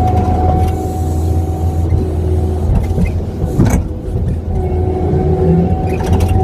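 Kubota skid steer's diesel engine running steadily with a steady whine on top, and a single sharp knock about three and a half seconds in.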